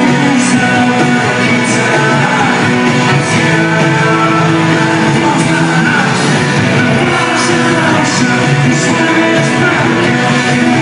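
Rock band playing live: electric guitars, drums with regular cymbal strikes, and a singer, heard loud from within the audience.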